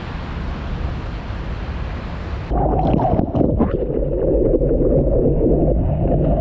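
Steady rush of wind and surf, then about two and a half seconds in a sudden switch to the muffled rush of water against a surfboard-mounted camera, with sharp splashes as the surfer paddles into a wave and stands up to ride it.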